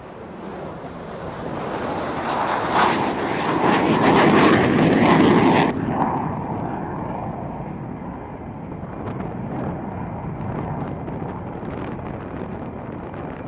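F-15E Strike Eagle jet engines on takeoff: loud jet noise swells to a peak about four to five seconds in, drops suddenly, then continues as a steadier, quieter jet noise.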